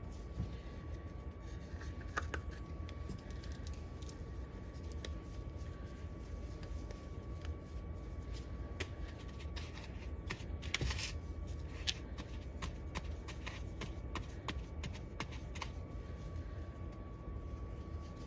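Small clicks, taps and light scrapes of hands setting sugar-coated cookie dough balls onto a baking tray, over a steady low hum.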